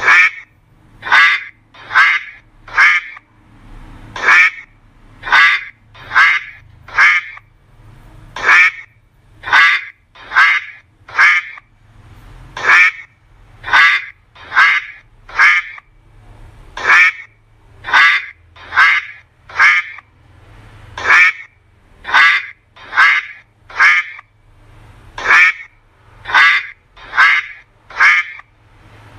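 A duck quacking over and over, about one quack a second, in runs of four with a short pause between runs.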